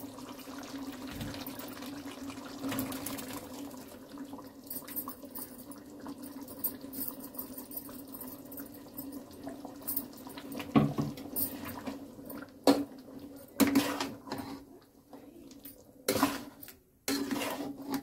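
A pot of yogurt gravy bubbling on the stove as the spinach goes in. From about eleven seconds in, a cooking spoon knocks against the pot several times as the dish is stirred.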